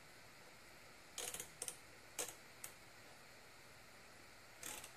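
Pliers working a hose clamp onto a catch can hose: a few short metallic clicks and scrapes about a second in, two more around two seconds, and another cluster near the end.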